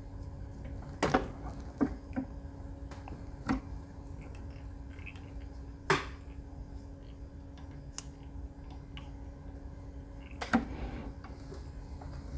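A handful of light, irregular clicks and taps from hands handling a bucktail jig and the fly-tying vise as the jig is turned over, over a faint steady hum.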